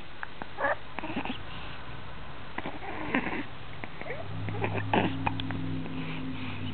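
Hiccups: scattered short, sharp catches, with a few small whimpering vocal sounds. A steady low hum comes in past the middle.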